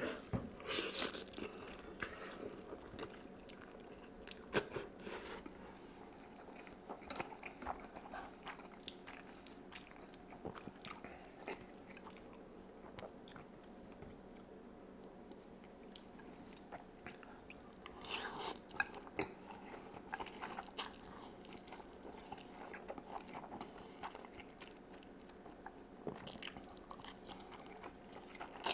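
A person slurping and chewing spicy Korean instant ramen (fire noodles) off chopsticks, with louder bursts of slurping about a second in, near the middle-to-late part and near the end, and softer wet chewing between.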